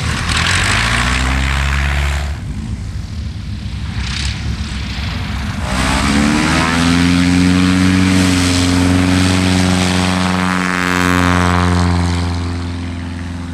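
A Piper Super Cub's propeller engine running at high power. Its note rises about halfway through, holds steady, then drops and fades a little near the end as the plane passes.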